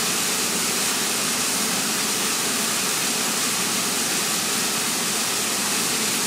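Steady rush of water jetting from the row of quarter-inch holes in a pressurized distribution pipe and splashing down into a metal tank. All the holes are flowing, the sign that the pressure filter is catching the debris and none of the discharge holes is plugging.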